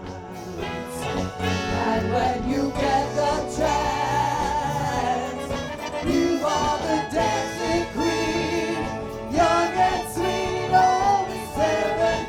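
Music: a song with singing over a full band.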